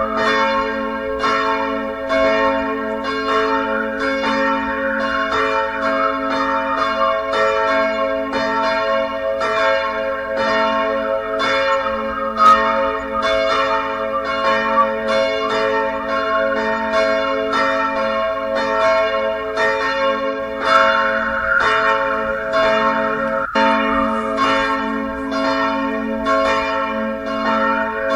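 Church bells ringing in a steady, rapid run of strokes, the tones ringing on and overlapping one another.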